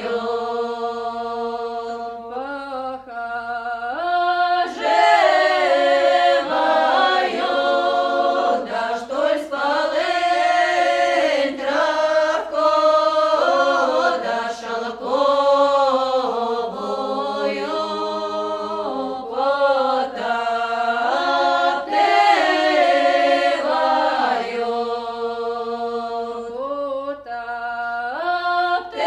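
Choir singing a slow, drawn-out Russian folk song a cappella, several voices in harmony holding long notes and sliding between pitches.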